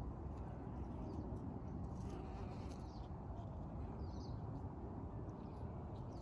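Bees buzzing in a steady drone, with a few faint high chirps.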